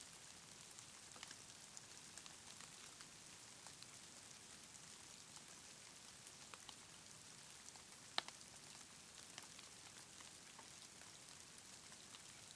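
Faint patter of falling drops over a soft hiss, with scattered light ticks and one sharper tick about eight seconds in.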